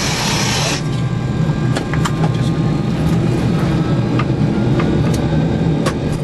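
Steady low hum in an Airbus A300 cockpit, with a short burst of hiss that stops under a second in and a few scattered sharp clicks.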